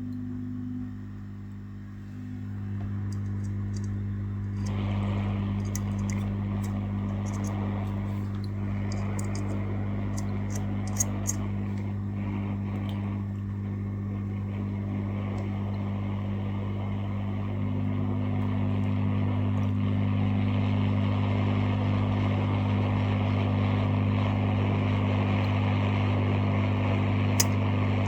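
Small electric blower motor humming steadily, with a rush of moving air that starts about five seconds in and grows stronger later. A few faint light ticks fall in between.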